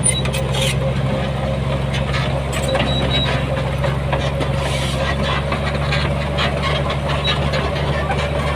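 Diesel engine of a heavy earthmoving machine running steadily, with scattered short metallic clicks and clanks over it.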